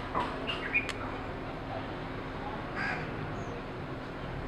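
Birds calling, with harsh crow-like caws, a few in the first second and one near three seconds in. A sharp metallic clink about a second in as the steel frying pan is set on the grill's wire grate.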